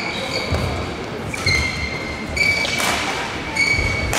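Badminton rally: rackets striking the shuttlecock with sharp cracks, one every second and a half or so, and court shoes squeaking on the sports floor several times as the players move.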